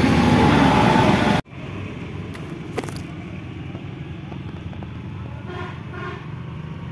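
Loud traffic noise beside lorries on a road, with a few steady horn-like tones in it. It cuts off abruptly about a second and a half in, leaving a quiet low outdoor hum with faint distant voices near the end.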